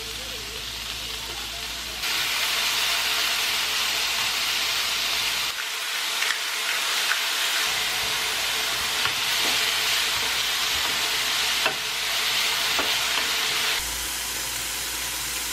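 Chopped bacon sizzling as it fries in a hot, dry non-stick pan, with a few sharp pops from the fat. The sizzle gets louder about two seconds in.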